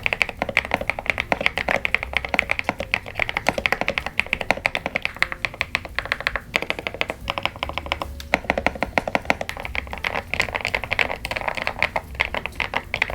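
Fast typing on a KiiBoom Phantom 81 mechanical keyboard: a dense run of key clacks, with brief pauses about six and a half and eight seconds in.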